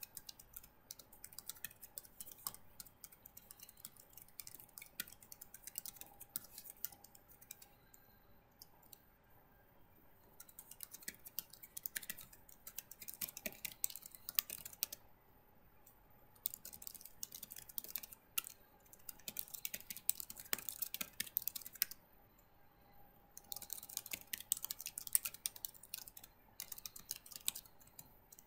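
Computer keyboard typing: runs of rapid keystrokes in several bursts, with short pauses between them.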